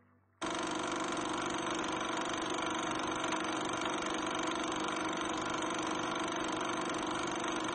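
Steady mechanical whirring noise with a low hum. It starts suddenly about half a second in and cuts off abruptly at the end.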